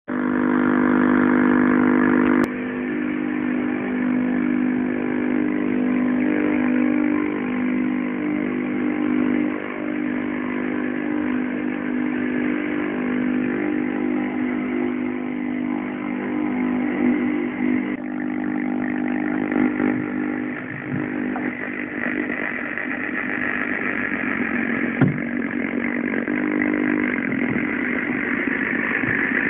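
A continuous electronic buzzing drone of several steady low tones stacked together, shifting slowly in texture. It drops slightly in level about two and a half seconds in, with a single sharp click near the end.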